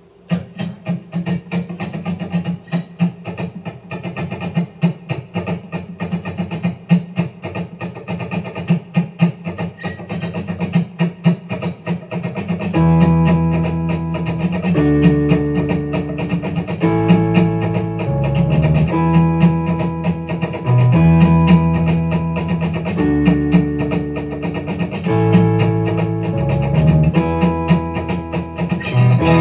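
Acoustic guitar strummed alone as an instrumental intro, then about 13 seconds in an electronic keyboard joins with sustained chords that change about every two seconds over the strumming.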